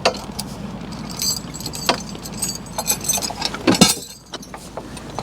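Metal harness hardware and chains clinking and jingling in a series of sharp clinks, with a low steady rumble underneath that stops about four seconds in.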